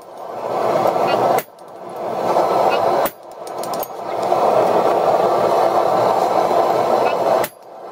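Hand hammer striking a punch driven into a red-hot mild-steel axe blank on the anvil, punching the axe eye: sharp metallic blows about a second and a half apart, then a pause of about four seconds before another blow near the end. A steady rushing noise fills the gaps between blows.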